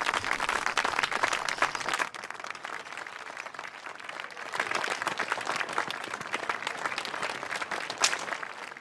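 Crowd of spectators applauding. The clapping drops to a quieter stretch about two seconds in and picks up again about halfway through.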